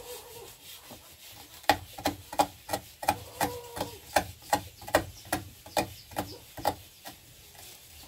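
Fresh turmeric root being grated on a hand grater: a run of short scraping strokes, about three a second, starting a couple of seconds in and stopping shortly before the end.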